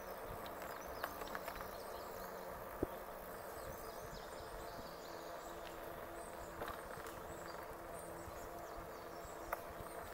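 Rolling noise of an e-bike on a trail, a steady hum under a noisy haze, with a few sharp clicks and faint high chirps.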